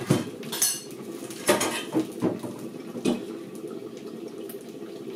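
Metal pots, lids and utensils clinking and clattering in about half a dozen separate knocks, over a steady low hum.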